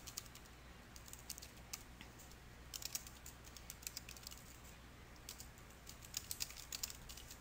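Typing on a computer keyboard: faint, quick key clicks in scattered runs, busiest a little under three seconds in and again from about five seconds in.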